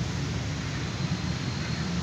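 Steady low rumble with an even hiss over it, with no distinct event standing out.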